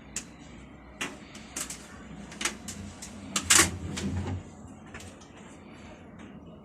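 Front-loading washing machine door and its latch being worked by hand: a string of separate clicks and knocks. The loudest comes about three and a half seconds in, with a short low rumble around it.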